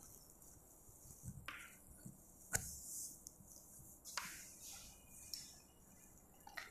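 A few faint taps and short scratches of chalk writing on a blackboard, the sharpest tap about two and a half seconds in.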